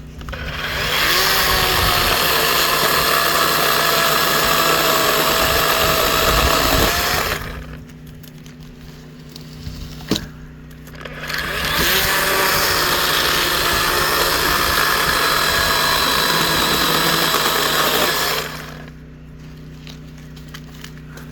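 Dewalt DCCS620B 20V brushless 12-inch cordless chainsaw running and cutting pine, in two cuts of about seven seconds each, separated by a short pause with a few clicks.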